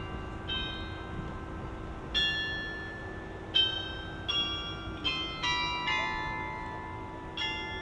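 Tower bells playing a slow tune: about eight single struck notes of different pitches, irregularly spaced, each ringing on and overlapping the next.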